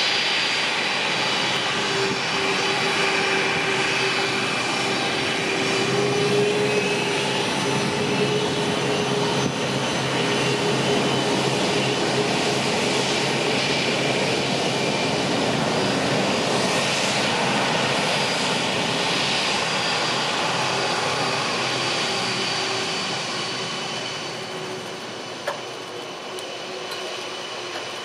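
A Boeing 747-400F's four jet engines running at taxi power: a steady rushing noise with a whine over it. It grows quieter near the end as the aircraft turns its tail away.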